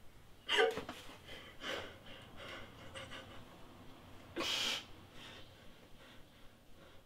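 A person gasping for breath: a few sharp voiced gasps in the first two seconds, then a louder, longer hissing breath about four and a half seconds in, fading away toward the end.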